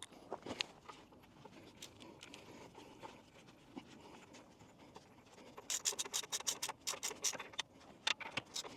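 Faint scraping and rubbing of hand work on metal parts. A little past halfway it turns into a quick run of scratchy strokes, several a second.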